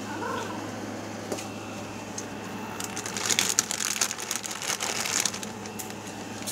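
Plastic snack bag crinkling as hands pull it open and dig into it, a burst of crackling and rustling from about three seconds in until just past five seconds.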